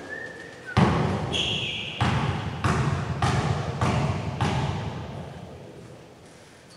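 Basketball dribbled on a gym floor: about seven bounces roughly two-thirds of a second apart, echoing in the hall and fading toward the end, with a brief sneaker squeak on the floor just after the first bounces.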